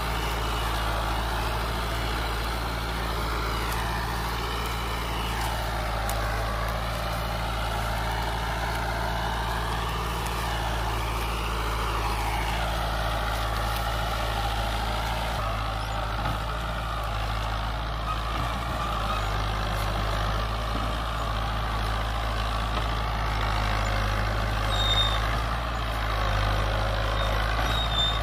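Farm tractor engine running steadily under load as it tows a trolley heavily loaded with sugarcane.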